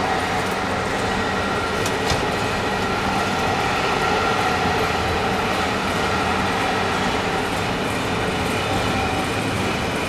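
Old locomotive-hauled passenger coach rolling along the track, heard from inside: a steady rumble of wheels on rails with a faint steady whine over it, and a single sharp click about two seconds in.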